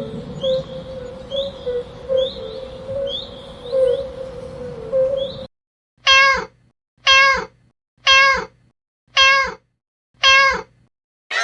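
Bird chirping with a short call repeated about twice a second, which cuts off suddenly partway through; then a cat meowing five times, about a second apart, each meow the same.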